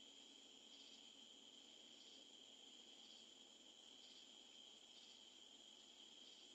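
Near silence: a faint, steady high-pitched whine with a soft chirp about once a second.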